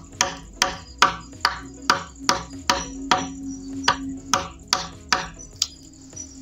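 Hammer striking a steel chisel into a green bamboo tube: about thirteen sharp knocks at a steady two to three a second, stopping shortly before the end.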